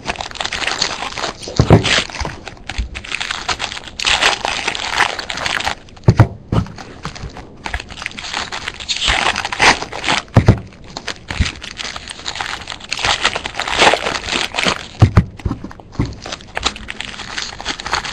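Foil card-pack wrappers being torn open and crinkled while packs from a Bowman Jumbo box are handled, with a few soft knocks from handling.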